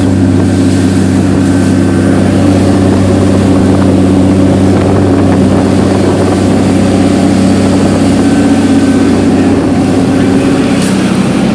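Boat's engine running steadily under way, a constant low drone, with the rush of water and wind around the hull.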